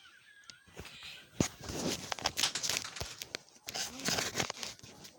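Rustling and crinkling with many sharp clicks and taps: things being handled.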